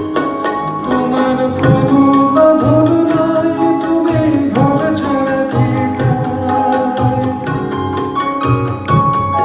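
Live Indian song accompaniment: tabla strokes under acoustic guitar and keyboard, with a melody line that bends and wavers in pitch through the middle.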